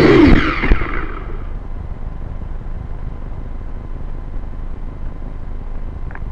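Small quadcopter drone's propellers buzzing with a wavering pitch, broken by a few sharp knocks; the buzz dies away about a second in, leaving only a low rumble of wind on the drone's own microphone. The knocks and the stopping motors are the sign of the drone hitting branches and coming down in the grass.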